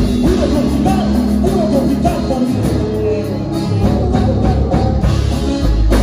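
Live band music at full volume: a steady beat over a heavy bass, with singing and a wavering melody line above.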